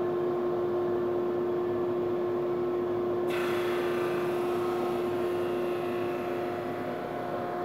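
Powermatic 22-44 drum sander running with a steady hum. About three seconds in, a higher hiss sets in and holds as the pine board feeds under the sanding drum.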